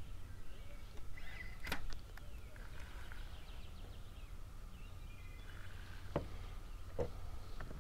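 A baitcasting rod and reel handled through a cast and retrieve. Mostly quiet, with a sharp click a little under two seconds in and two lighter clicks near the end.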